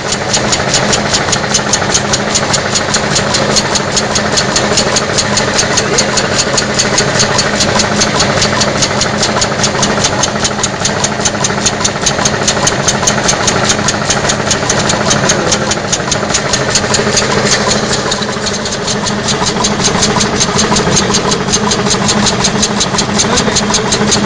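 Hero Honda 98cc single-cylinder engine running on compressed air fed by a solenoid valve, giving a steady, rapid train of sharp clicks, about five or six a second, over a constant hum. It eases off slightly for a moment about three-quarters of the way through.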